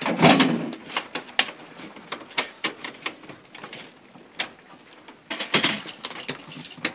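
Irregular light clicks, knocks and scrapes of hands working on the garage door track while a shim is fitted. A louder scraping rustle comes right at the start, and another about five and a half seconds in.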